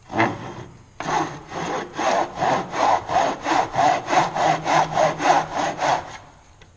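Back saw cutting across a wooden block in a plastic miter box: one stroke, then after a short pause a steady run of quick strokes, about three a second, that stops about six seconds in. The saw is cutting a kerf down toward a 3/16-inch depth line, the wall of a groove.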